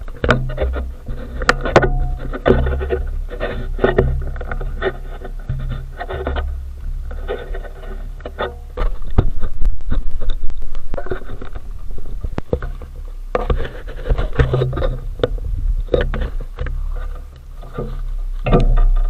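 ATV engine idling with a steady low hum while the machine stands still, under irregular knocks, clicks and rubbing from the camera and its mount being handled.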